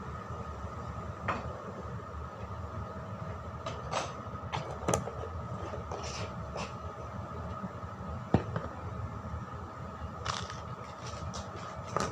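Steady low rumble and hum of cooking in a kitchen, with a handful of sharp clicks and knocks; the loudest come about five and eight seconds in.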